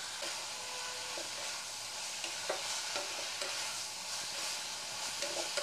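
Chopped bottle gourd with spices sizzling in oil in a kadai while a spatula stirs it, with a few soft scrapes and knocks of the spatula against the pan. The vegetables are being fried down with the spices over a medium flame.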